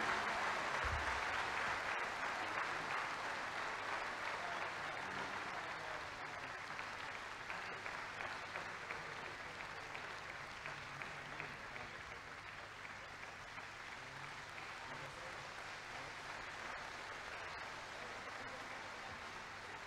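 Concert-hall audience applauding, the applause slowly dying away.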